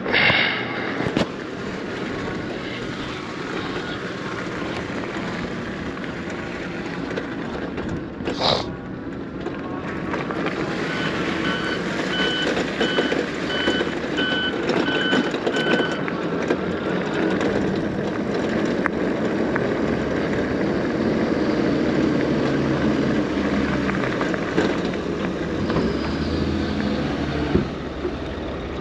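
Steady vehicle-like rumble with a run of evenly spaced electronic beeps, about two a second for some five seconds partway through, typical of a reversing alarm.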